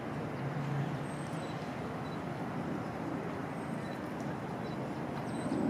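Steady low background rumble of distant traffic.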